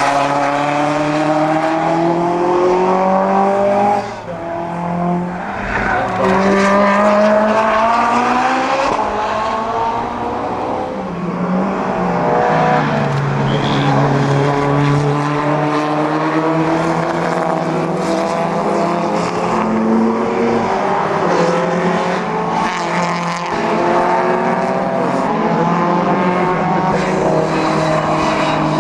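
Historic racing cars, among them a Lancia 037 rally car and a Lotus Cortina, passing one after another at full throttle. Engine pitch climbs through each gear and drops at the shifts, and at times several engines overlap.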